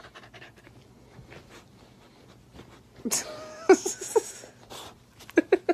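A pet animal's noises: faint at first, then short pitched sounds from about three seconds in and a quick run of short, sharp calls near the end.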